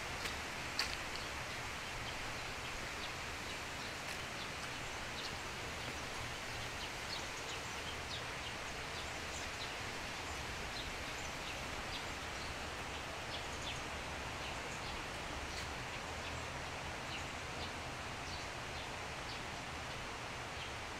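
Steady outdoor ambient hiss with short, high bird chirps scattered throughout, and a couple of faint clicks about a second in.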